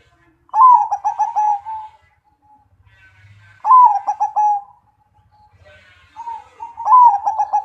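Zebra dove (perkutut) cooing loudly: three song phrases about three seconds apart, each a rising opening note followed by a quick rolling run of short pulses.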